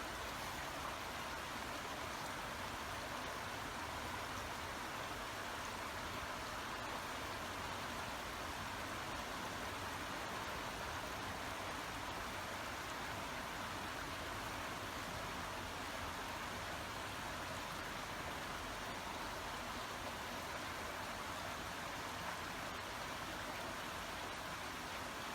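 A babbling brook: running water making a steady, even rush that does not rise or fall.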